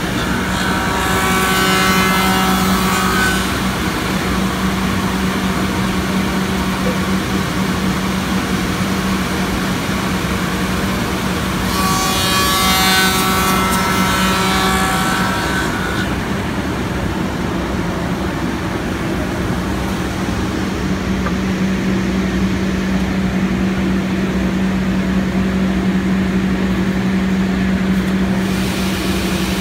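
Soukup Crafter angular CNC machining center running with a steady hum while its tenoning tools cut the end of a wooden window-sash rail. There are two cuts, about a second in and again about twelve seconds in, each a few seconds of hissing with a whine over it. Between them only the hum remains.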